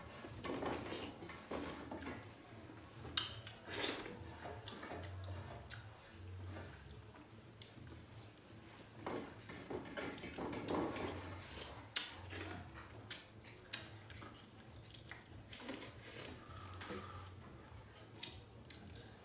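Fingers mixing and scooping rice and dal on large metal plates: irregular scrapes and clicks of hands and food against the metal, scattered through the whole stretch.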